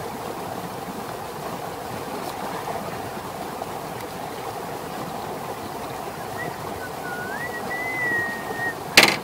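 Steady rushing of running water, like a stream or irrigation channel. Over the last few seconds a high, thin whistle glides up and down, and a sharp click comes near the end.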